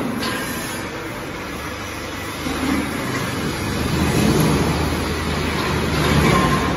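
Forklift engine running as the forklift drives, a steady low engine hum that grows a little louder from about two and a half seconds in.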